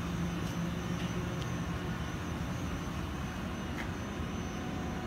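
Steady machine-shop hum from powered-up machinery: a low drone that eases off about a second and a half in, a thin high whine above it, and a few faint light clicks.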